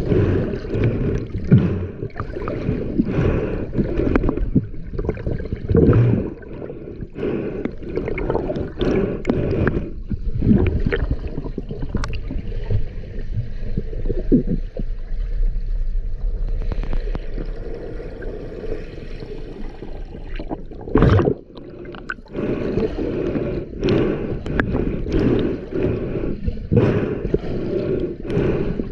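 Stream water gurgling and sloshing, muffled and deep, with frequent irregular knocks and splashes.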